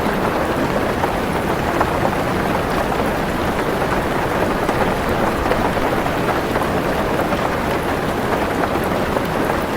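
Heavy rain falling steadily on a car's roof, a dense even patter with no breaks.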